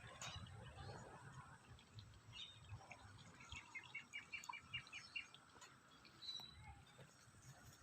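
A bird calling: a quick run of about nine short, falling chirps a few seconds in, with a few scattered single chirps, over a faint low rumble.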